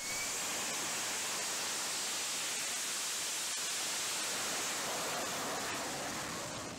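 Steady rushing jet noise from an AV-8B Harrier's Pegasus turbofan as the jet hovers, an even hiss-like roar with no distinct tones, easing slightly near the end.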